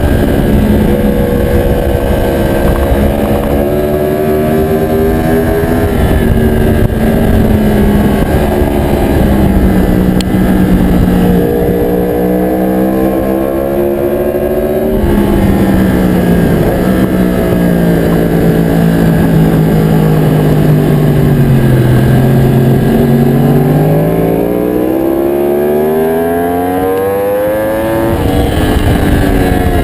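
Aprilia Tuono motorcycle engine heard onboard at track speed, its pitch falling steadily for several seconds past the middle as the bike slows, then climbing under acceleration and dropping suddenly near the end at a gear change.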